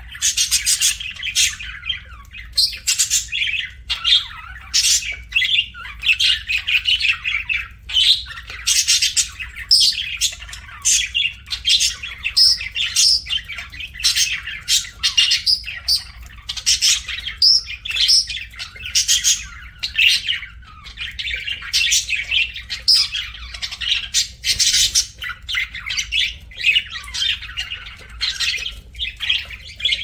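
A flock of budgerigars chattering as they feed: many high-pitched calls overlapping without a break, swelling and dipping in loudness every second or so.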